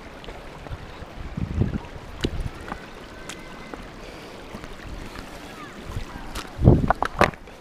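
Footsteps on stones crossing shallow water, with wind noise on the microphone; a quick run of heavier footfalls near the end.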